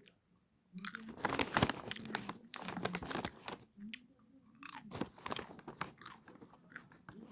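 Close-up chewing of salted popcorn: a dense run of crisp crunching starting about a second in, then slower, fainter crunches as the mouthful is chewed down.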